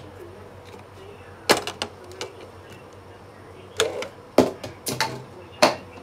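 Sharp clicks and knocks of a vacuum cleaner's hard plastic housing being handled and fitted together on a workbench. They come in clusters, a few about a second and a half in and a quicker run of them around four to five seconds in.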